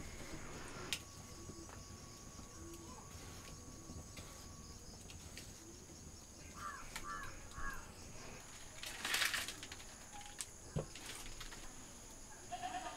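Insects trilling steadily in the background, with three short bird chirps a little past halfway. A brief rustle and a single soft knock follow a few seconds later.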